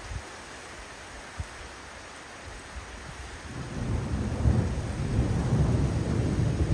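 Thunder rumbling in about halfway through, low and rolling and growing louder, over a steady hiss of rain.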